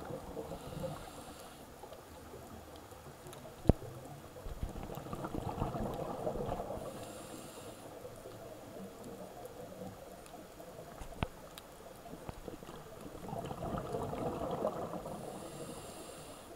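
Scuba regulator breathing heard underwater: short hisses of inhaled air and two long rushes of burbling exhaled bubbles. Two sharp clicks sound in between.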